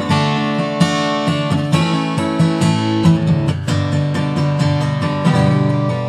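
Acoustic guitar strumming chords, an instrumental stretch between the sung lines of a song.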